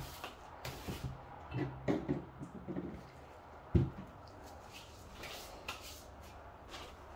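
Scattered knocks and clunks of objects being handled, with two sharper thumps: one at the very start and one a little before the middle. A low hum runs through the first half.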